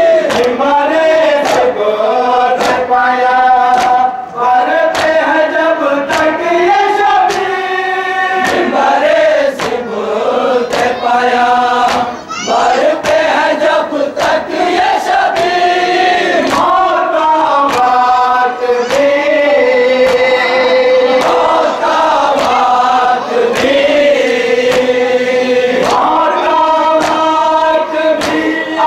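A group of men chanting an Urdu noha (Shia lament) together in long, held lines, over a steady beat of sharp strikes that keep time.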